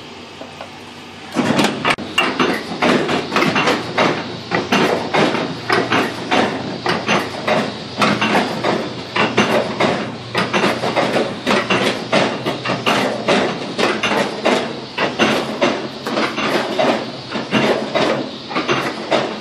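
A steady hum, then about a second in, dense irregular clattering and knocking starts abruptly and keeps on, several knocks a second.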